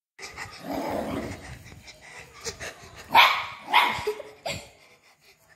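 Small dog barking three times in quick succession, after a couple of seconds of scuffling and rustling.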